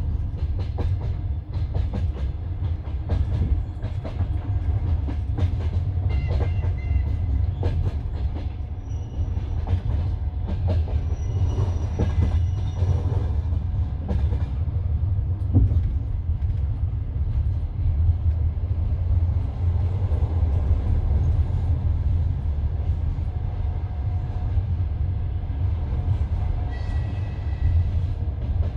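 Passenger train wheels clattering over the rail joints, with a steady low rumble of the carriage running at speed, heard from inside the coach.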